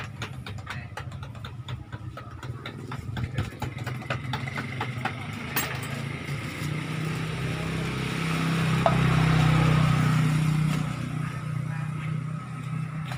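A motorcycle engine passing on the street, growing louder to a peak about nine to ten seconds in and then fading away, with a few light clicks earlier on.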